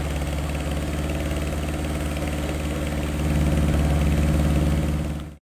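Toyota Starlet slalom car's engine idling steadily at its tailpipe, a little louder from about three seconds in. The sound cuts off suddenly near the end.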